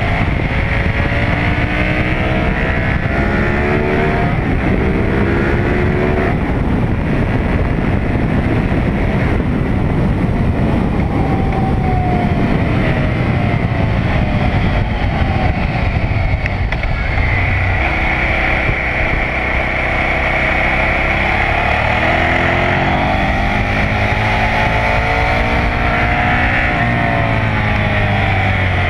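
KTM 990 SMR's 999 cc V-twin engine pulling hard on a racetrack. Its pitch climbs in steps as it goes up through the gears, falls away for a while midway as the bike slows, then climbs again near the end, over constant wind rush on the microphone.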